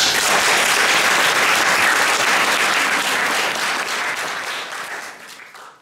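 Audience applauding, starting abruptly as the piano's last notes end, holding steady, then fading away in the last second or so.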